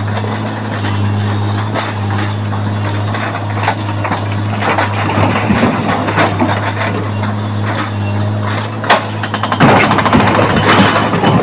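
Hydraulic rock breaker on a Tata Hitachi excavator hammering rock over the steady drone of the excavator's engine. Near the end the drone gives way to rapid, slightly louder hammering.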